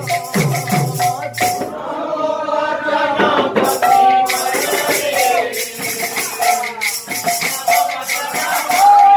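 Men singing a devotional kirtan song with rhythmic percussion. Low drum strokes with a falling pitch, about two a second, with crisp high strokes, play at the start, thin out in the middle while the voices hold long notes, and return near the end.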